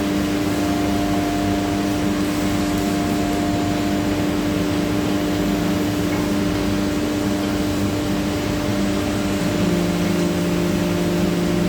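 CNC router spindle running and cutting GRC (glassfibre-reinforced concrete): a steady whine over a rough hiss, with a second, slightly higher pitch joining near the end.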